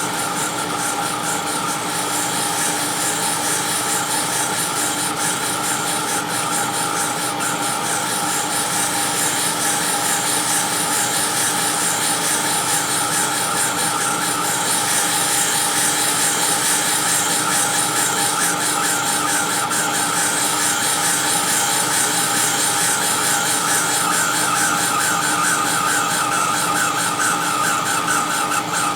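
Cylindrical grinder's abrasive wheel grinding the outside of an annular cutter: a steady machine whine with the high hiss and light squeak of the wheel touching every flute, which shows the cutter is now running true. It grows a little louder about halfway through.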